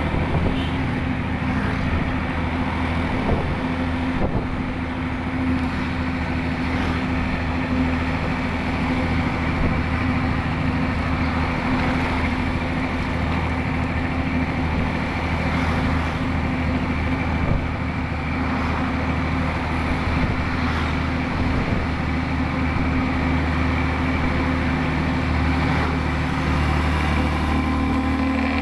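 Bus diesel engine running steadily with a deep snoring exhaust note, the sound typical of an Indonesian economy 'bumel' bus.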